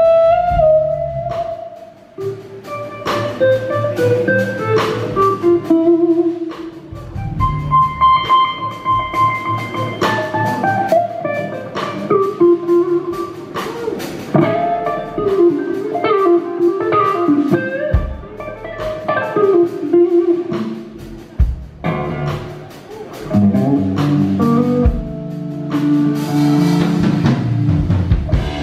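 Live blues-rock electric guitar solo, with bent notes and quick runs, backed by bass and drums.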